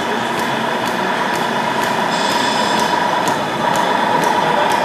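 Tamiya Scania Highline RC model truck running, a steady small-motor whine with faint regular ticks about twice a second.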